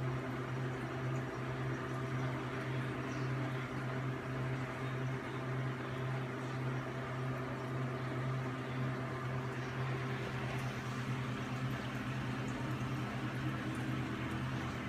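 Reef aquarium equipment running: a steady low hum from the pumps, with water bubbling and trickling over it.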